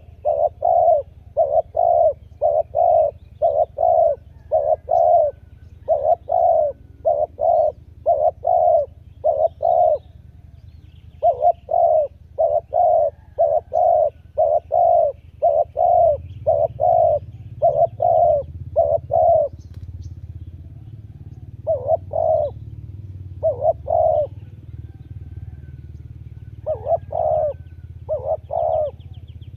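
Spotted dove cooing: short, repeated coo notes in quick runs, with a brief pause about ten seconds in, then coming in sparser groups over the second half. A low steady engine hum comes in about halfway.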